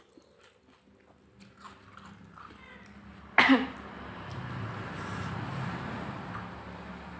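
Mouth sounds of a person eating close to the microphone: soft chewing clicks, then a sudden loud burst about three and a half seconds in, followed by a steady noisy stretch.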